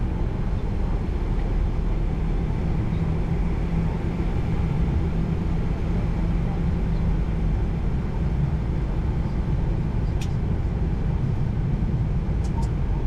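Steady low rumble of a Boeing 737-800 taxiing along the runway, heard in the cockpit: its CFM56 engines at idle and its wheels rolling. A few faint, sharp clicks come in the last few seconds.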